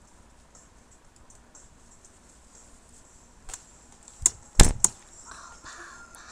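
Quiet room tone, then a cluster of four knocks or bumps between about three and a half and five seconds in, the third the loudest with a deep thud.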